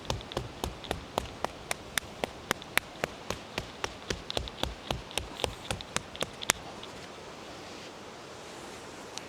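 Percussion massage: a hand rhythmically tapping down the leg along the stomach meridian, about four light strikes a second, stopping about six and a half seconds in. A steady faint hiss remains.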